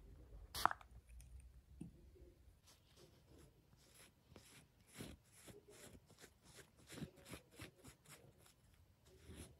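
A gauze pad held in tweezers is rubbed over skin in short, soft scratchy strokes, about three a second, starting a few seconds in. A single sharp click comes about half a second in.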